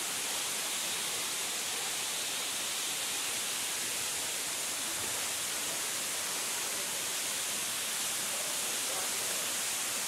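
Waterfall: a steady rushing hiss of falling water, unchanging throughout.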